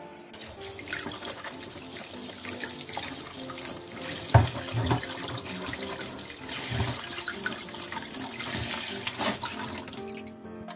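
Tap water pouring into a stainless steel sink as bell peppers are rinsed under it by hand. It starts a moment in, with several sharp knocks as the peppers and bowl are handled, the loudest about four seconds in.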